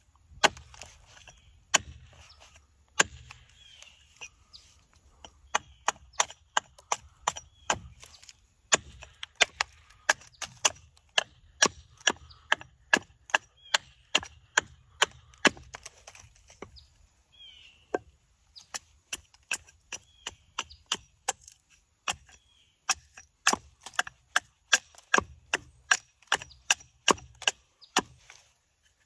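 Blade chopping into walnut wood while a spoon is carved, a rapid series of sharp cuts about two to three a second. There is a short break a little past midway, then the chopping resumes.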